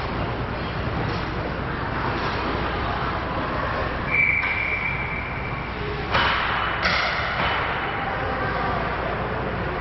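Ice hockey rink noise during a youth game: a steady wash of skating and spectator sound, a steady high whistle about four seconds in lasting over a second, then two sudden noisy bursts at about six and seven seconds.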